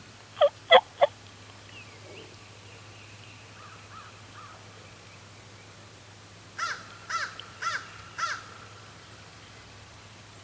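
Crow cawing: a quick burst of three loud caws, then after a pause a series of four caws about half a second apart.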